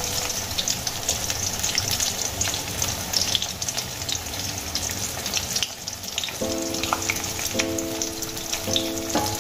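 Pointed gourd (potol) pieces frying in hot oil in a kadai: a steady sizzle with many small crackles and pops. Soft background music comes in about six seconds in.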